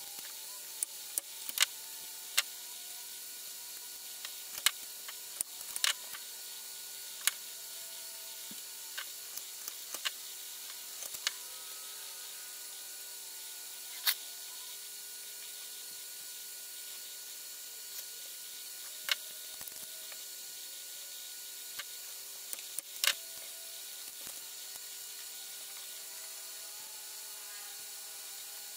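Fine copper magnet wire being pulled and snapped off a coil winding by hand, giving sharp, irregular clicks and ticks over a steady hiss.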